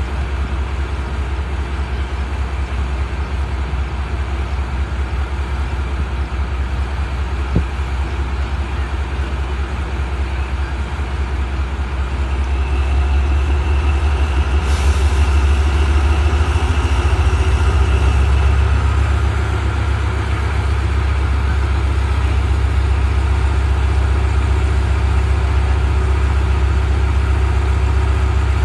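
ZCU-30 diesel-electric locomotive's engine running with a deep, steady rumble. Past the halfway point it grows louder as the engine is worked up for departure, with a sudden hiss of air coming in about fifteen seconds in and fading a few seconds later.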